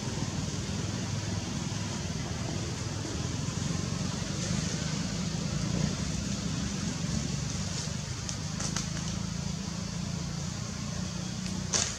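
Steady outdoor background noise: a low, engine-like hum under a constant hiss, with a few faint brief clicks in the second half.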